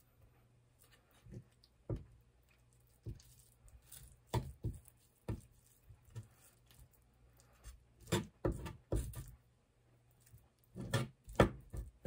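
Cleaver knocking on a wooden cutting board as raw meat is sliced: irregular knife strikes, a few close together, with the loudest clusters about eight and eleven seconds in.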